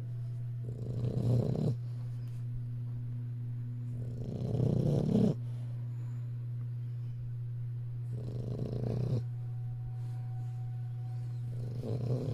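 English Bulldog puppy snoring: four snores about every four seconds, each lasting roughly a second, over a steady low hum.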